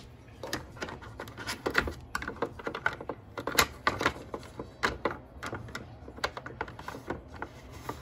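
Sticky packing tape being peeled off a new Keurig K-Latte coffee maker: a run of irregular crackles and sharp clicks.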